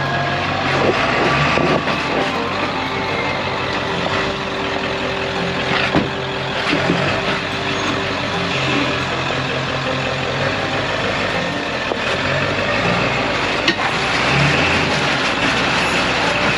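Truck engine running steadily, with a couple of sharp knocks, one about six seconds in and one near the end.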